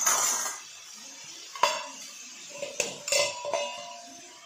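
Metal kitchenware against an iron kadhai of frying pumpkin: a scrape at the start, then three sharp clinks with a brief metallic ring.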